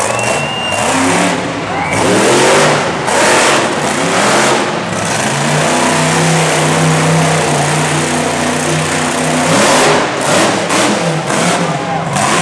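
Monster truck engine revving hard and loud, its pitch swinging up and down, then held at a steady high pitch for a few seconds in the middle before dropping away.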